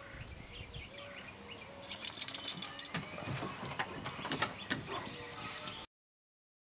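Faint short bird chirps, then a stretch of dense rustling and crackling clicks that cuts off abruptly near the end.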